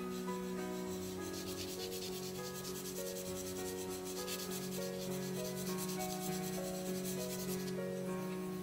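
Graphite pencil scratching across drawing paper in quick, repeated hatching strokes, which stop near the end. Soft piano background music plays underneath.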